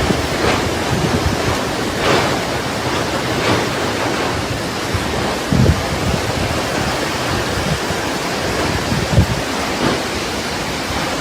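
Hurricane wind and surf: a loud, steady rush of wind and water, with gusts buffeting the microphone now and then.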